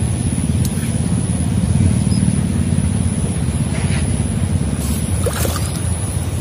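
A steady low rumble, with a few faint splashes from a hooked tilapia thrashing at the pond surface about four and five seconds in.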